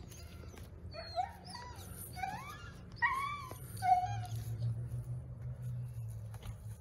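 Pet dog barking and whining in a run of short, high calls that bend up and down, over the first four seconds or so.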